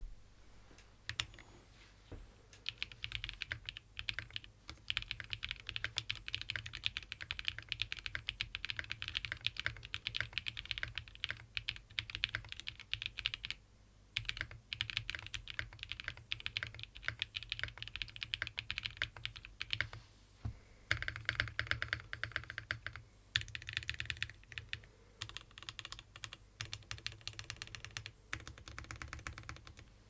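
Typing on a Mode65 mechanical keyboard with lubed Prevail Epsilon switches and PBT keycaps, built with a POM half plate with flex cuts, a copper bottom and no foam: fast runs of keystrokes with brief pauses about 4, 14 and 20 seconds in.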